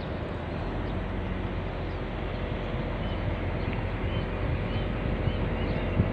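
Steady mechanical drone with a low hum, as of a running engine or machine, with a few faint, short bird chirps in the second half.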